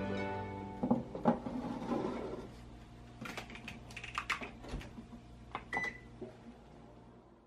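A metal baking tray of stainless cookie rings goes into a Toshiba combination microwave oven with a couple of metal clinks. Then the oven door closes with a run of clunks and clicks, and the control panel gives a short beep about six seconds in. Soft background music fades out in the first second.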